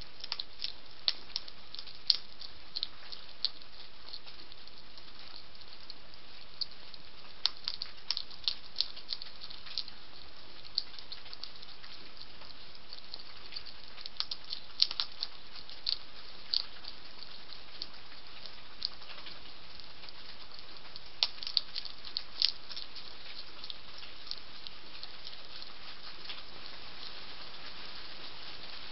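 European hedgehog crunching dry pellet food: irregular clusters of short sharp crunches a few seconds apart, over a steady hiss.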